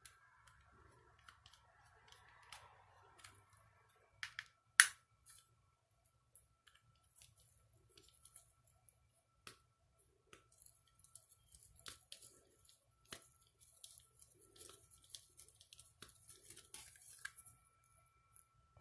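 Scattered small plastic clicks and snips from a cheap plastic BBQ lighter being handled and taken apart, with one sharp, much louder click about five seconds in.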